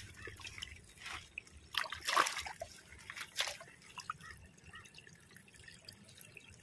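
A hand sloshing through shallow, muddy stream water between rocks, with a few short splashes about 1, 2 and 3.5 seconds in, then faint dripping and trickling.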